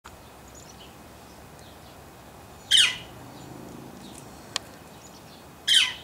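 Yellow-shafted northern flicker giving two loud, sharply falling single-note calls about three seconds apart. A single sharp click comes between them.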